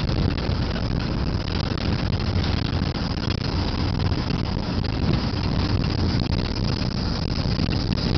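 Steady engine and road noise heard from inside a moving car's cabin, with the low rumble strongest.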